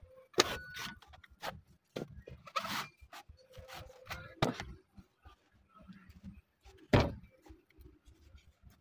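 A large knife chopping and shaving the husk of a trimmed young coconut: irregular sharp chops and short scraping cuts, the loudest about seven seconds in.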